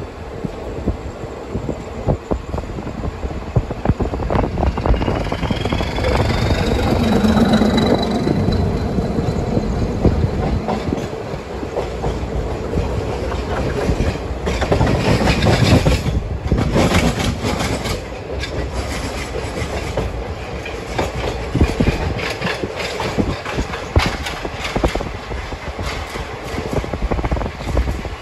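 Passenger express train running, heard from an open coach doorway as it pulls out and gathers speed: a steady rumble of wheels with repeated clatter over rail joints and points, and air rushing past. About five seconds in a high whine rises and holds for a few seconds.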